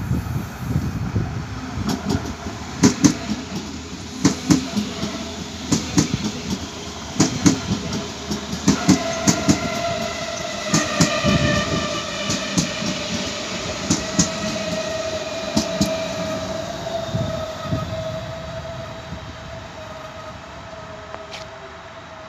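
Red electric multiple-unit train running past the platform: its wheels clack over rail joints, often in quick pairs. From about nine seconds in there is a steady whine, and the whole sound fades as the train draws away near the end.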